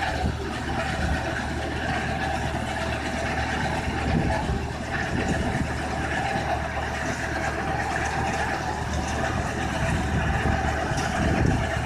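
2003 Erin TD125T (Fintec 540) tracked mobile screener running: its Deutz diesel engine, vibrating screen box and conveyors make a steady mechanical drone with a constant low hum.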